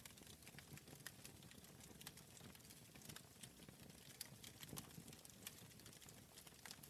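Wood fire in a fireplace crackling faintly: irregular sharp snaps and pops, a few each second, over a soft low rush of the flames.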